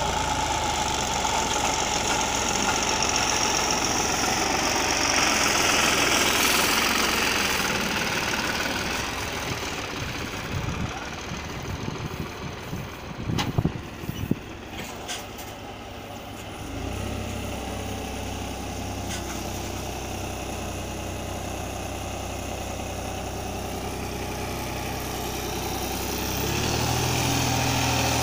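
New Holland 3630 tractor's diesel engine running. It is loud at first, drops back with a few knocks about halfway through, then idles steadily and picks up again near the end.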